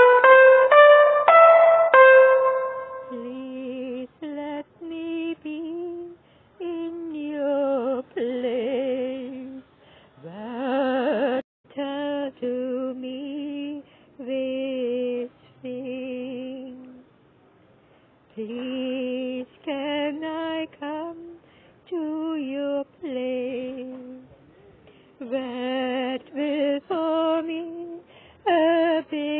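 A few descending keyboard notes open, then a solo voice sings unaccompanied: short held phrases with vibrato, separated by brief pauses.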